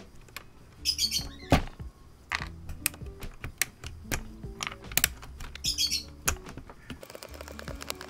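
Sharp plastic clicks and clacks as keycaps are pried off a Rakk Lam-Ang Lite mechanical keyboard's switches with a keycap puller and dropped into a plastic tray, irregular and many. Background music runs underneath, with two short chirpy squeaks, about a second in and near the six-second mark.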